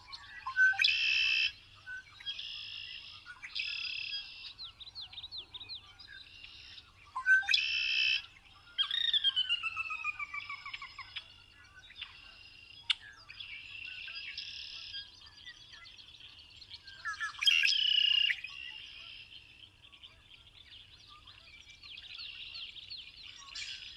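Songbirds singing: a string of chirped, trilled and whistled phrases, one after another, with a long falling whistle about nine seconds in. The loudest phrases come about a second in, around eight seconds and around eighteen seconds.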